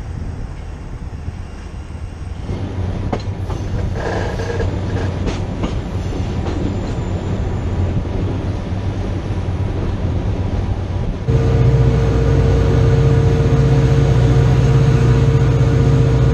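A moving train heard from cameras mounted on the train: rumble and clatter of the wheels on the rails along with the locomotive running. The sound changes abruptly about two and a half and eleven seconds in. The last part, from the locomotive's roof, is louder, with a deep engine drone and a steady hum.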